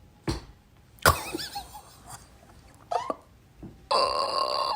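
A dog's short, excited vocal sounds: a few sudden yelps, one with a brief wavering whine. Near the end a louder, steady call of a different kind begins.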